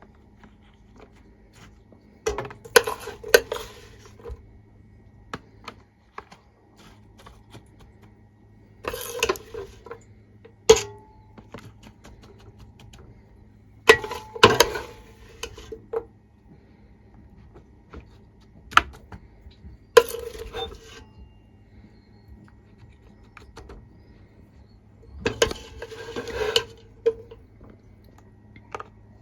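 Kitchen utensil scraping and knocking against a mixing bowl in short bursts every few seconds, as a sticky nut, honey and puffed rice mixture is scooped out into silicone bar moulds.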